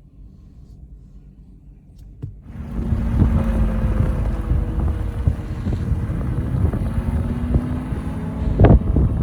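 Wind buffeting the microphone, starting suddenly about two and a half seconds in after two short clicks, then a loud, gusty low rumble with a sharp gust near the end.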